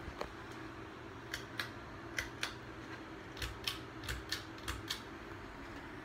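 A Clarkston II ceiling fan running with a low, steady motor hum. Over it comes a string of sharp clicks in pairs, five pairs about a second apart, from about a second in until near the end.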